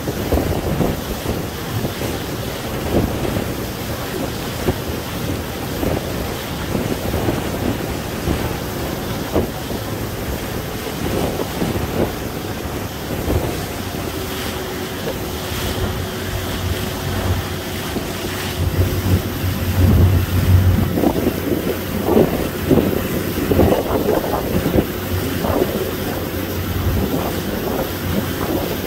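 Wind buffeting the microphone and the rush of water along the hull from a ferry underway, over a steady low drone of its engines that swells about two-thirds of the way through.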